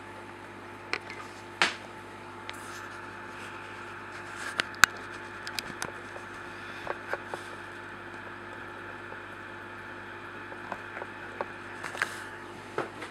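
Steady low hum with a faint hiss, broken by scattered sharp clicks and taps; the loudest click comes about five seconds in.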